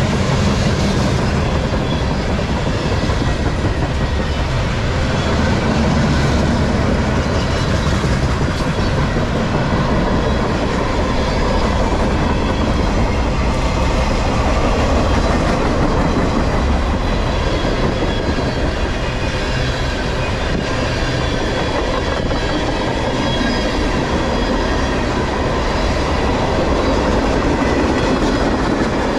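Freight cars of a mostly empty CSX manifest train, boxcars and then tank cars, rolling steadily past close by. Steel wheels rumble and clack on the rails, with a faint ringing of wheel on rail above.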